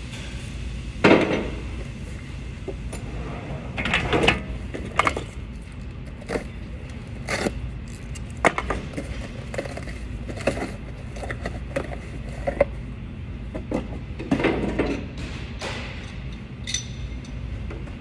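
Irregular metallic clinks and knocks of tools and parts being handled in a backhoe's engine bay during fan belt tensioner and idler replacement, over a steady low hum. The loudest knock comes about a second in, and a bright ringing clink comes near the end.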